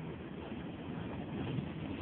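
Steady low rumble of a car moving slowly along a dirt track, heard from inside the car.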